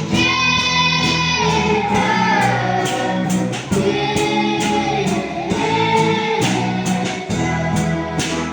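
A song with sung vocals over a plucked guitar accompaniment, the voice holding long notes.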